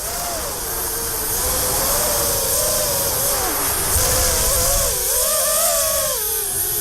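FPV quadcopter's brushless motors and propellers whining in flight, the pitch wavering up and down with throttle, over heavy wind and hiss.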